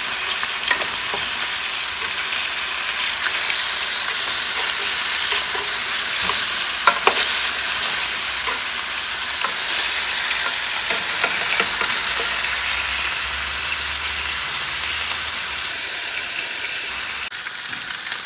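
Seasoned oxtails searing in hot avocado oil in a pan: a steady loud sizzle with constant crackling and a few sharper pops.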